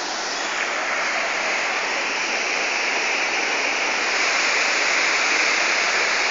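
Water rushing down over rocks as a steady, even hiss that grows a little louder toward the end.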